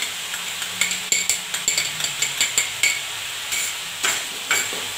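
Ginger-garlic paste being scraped off a small glass bowl with a metal spatula into a kadhai of frying onion paste: a quick run of clicks and taps, metal on glass and pan, over the first three seconds. A steady sizzle of hot oil runs underneath, and stirring scrapes return near the end.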